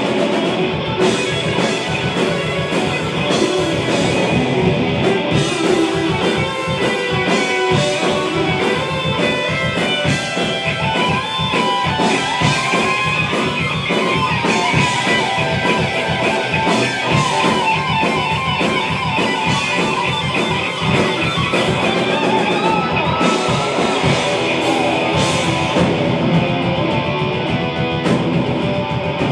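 Heavy metal band playing live: distorted electric guitars, bass guitar and a drum kit at full volume, without a pause.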